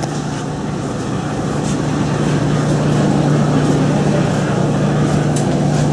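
Commercial laundromat machines running: a steady hum under a dense, even rumble of drums turning.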